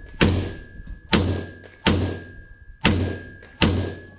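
Five pistol shots from a custom 2011-pattern competition pistol in .357 SIG, fired about a second apart, each with a short echo and a faint high ring lingering between them.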